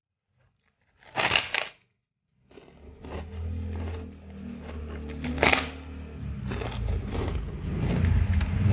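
Loud crunching bites into a large puffed krupuk cracker, one about a second in and another about five seconds in, with chewing crackle between. Under it, motorbikes passing by outside set up a low engine drone that grows louder through the second half.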